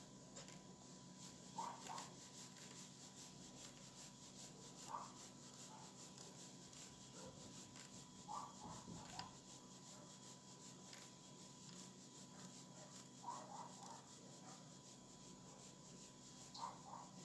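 Near silence: faint room tone with a steady high hum and a few faint short chirps scattered through it.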